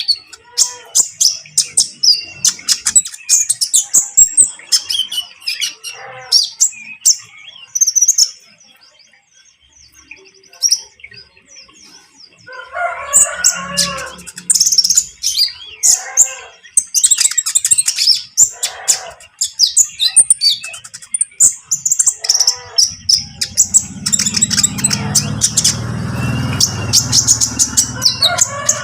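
Kolibri ninja sunbird singing in rapid, high, chattering runs of chirps (the fast 'trotol' style), with a brief pause about a third of the way in. A low rumble comes in near the end.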